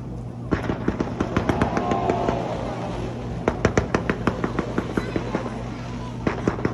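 Fireworks going off in rapid, irregular crackling volleys of sharp pops, starting about half a second in, with a brief lull midway before another dense run.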